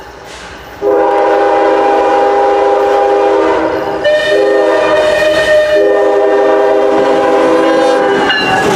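CSX GE ES44AH freight locomotive sounding its multi-chime air horn on approach: a loud chord starts about a second in and is held with two brief breaks. Near the end the horn drops slightly in pitch and cuts off as the locomotive passes, giving way to engine and wheel noise.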